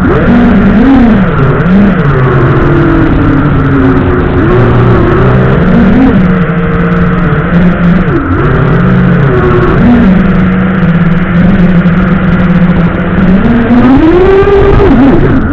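FPV quadcopter's motors and propellers whining as heard through the onboard camera's microphone, the pitch rising and falling with throttle changes, holding steady for a few seconds late on and then climbing again near the end.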